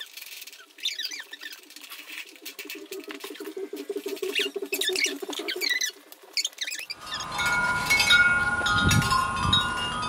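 Tubular wind chime ringing, several clear tones that overlap and hang on, beginning suddenly about seven seconds in. Before that, faint high squeaks over a low pulsing hum.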